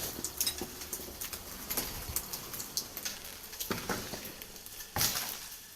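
Irregular light crackles and knocks of a person moving over a littered floor of debris, with one louder knock about five seconds in.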